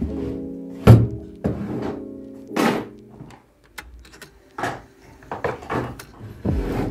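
Objects being picked up and set down on a desk during tidying: a series of knocks and thunks, the loudest about a second in, over soft background music.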